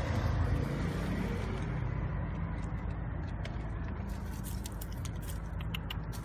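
Cats chewing dry kibble, with a run of sharp crunching clicks in the second half, over a steady low rumble of road traffic.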